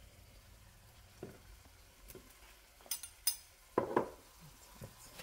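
A handful of light clinks and knocks from a metal spoon scraping and tapping against a ceramic bowl and from a wooden spoon in a frying pan, as tomato paste is scooped in. The loudest clink comes about four seconds in.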